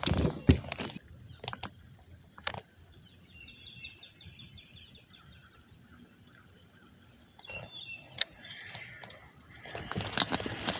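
Knocks and clicks of a fishing rod and baitcasting reel being handled in a kayak, with a bird chirping faintly in the middle. Near the end a rush of noise and a sharp click come as a small bass takes the bait.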